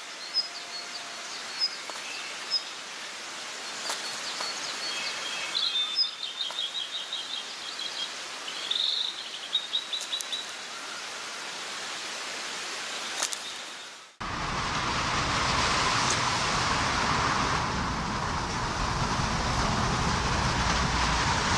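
Small birds chirping, with a quick repeated trill, over a faint background hiss. About fourteen seconds in, this cuts to a steady, louder rushing noise with a faint steady hum in it.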